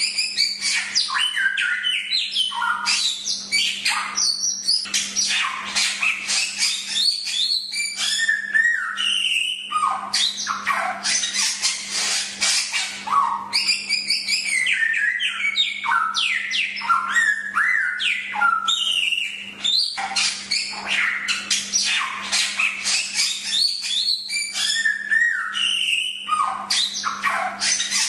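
Samyong songbird singing a continuous, rapid string of chirps, short up-and-down whistles and fast trills, with hardly a pause. A faint steady hum runs underneath.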